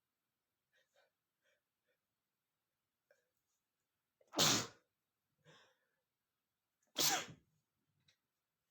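A man sneezing powerfully twice, about two and a half seconds apart, each sneeze followed by a short breath. A few faint sniffs come before them. The sneezes are set off by sniffing red peppers.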